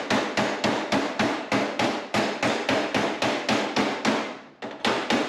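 A hammer strikes the edge of an aluminium fan-shroud sheet again and again, about three blows a second, curling a flared lip into the metal. There is a short pause near the end before the blows resume.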